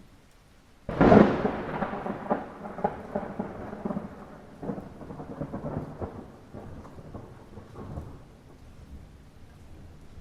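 A close thunderclap over mild rain: a sudden sharp crack about a second in, then a crackling rumble that slowly dies away.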